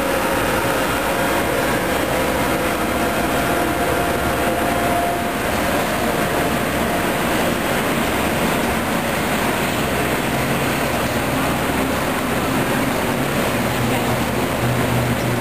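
Diesel passenger locomotives standing at a platform with their engines idling: a loud, steady mechanical drone. A faint whine fades out in the first few seconds, and a low hum grows stronger near the end.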